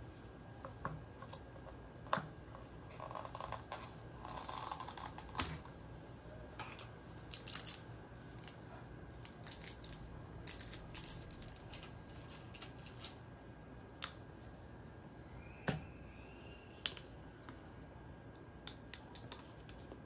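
Small, clicky handling sounds of a plastic dessert cup being opened: the clear snap-on cover is worked off, and the sealed lid crinkles as it is peeled back. Scattered sharp clicks and short crinkling spells come throughout.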